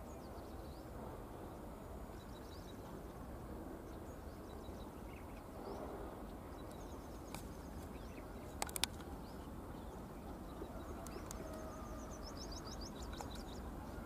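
Faint low rumble of an approaching train hauled by twin WDG3A diesel locomotives, growing slightly louder, under small birds chirping. A couple of sharp clicks sound about eight and a half seconds in.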